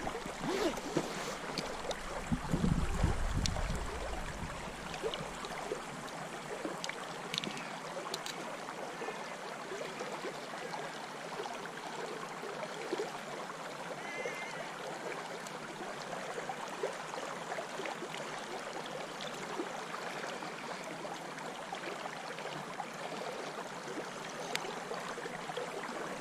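Shallow river water running steadily over a stony bed, with a brief low rumble about two seconds in.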